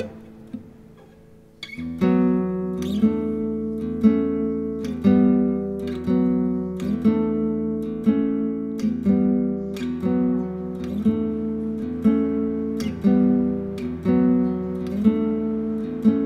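Background music: an acoustic guitar strumming chords in a steady rhythm of about one strum a second. It comes in about two seconds in, after a short quiet gap.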